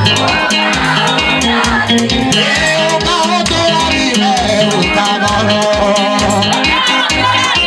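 Dance music with a steady beat, crisp high percussion ticks and a singing voice over it.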